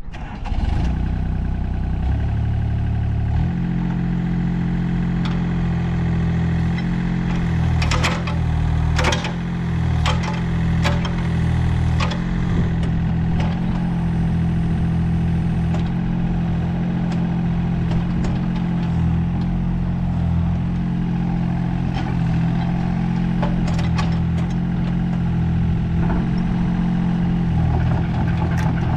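Diesel engine of a Komatsu PC27MR-3 compact excavator running steadily, its note shifting about three and a half seconds in. Sharp metallic clanks come several times between about eight and twelve seconds in, and again later.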